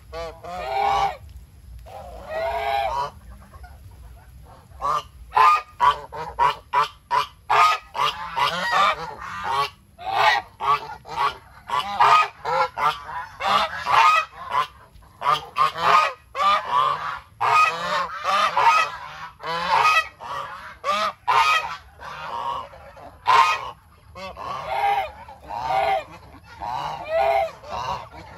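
A flock of domestic geese honking, many short calls overlapping one another. A few calls in the first seconds, then a near-constant chorus of honks from about five seconds in.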